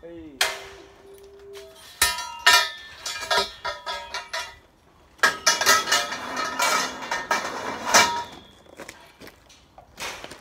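Steel scaffolding pipes and fittings clanging and clattering as they are handled and loaded onto a truck. A pipe strike rings on for over a second near the start, two more clangs follow at about two seconds, and a run of clattering metal follows from about five to nine seconds.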